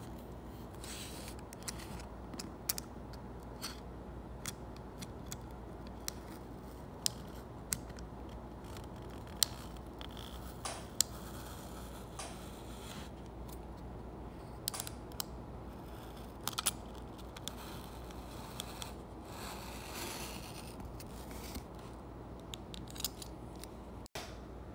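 Craft knife trimming the overhanging paper of a mounted print along the edge of a wooden panel: scattered sharp clicks and short scrapes as the blade cuts through the paper, over a faint steady hum.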